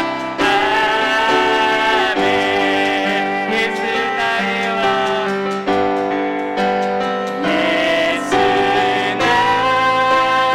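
Worship song: a praise team singing with piano accompaniment, held notes over chords that change every second or two.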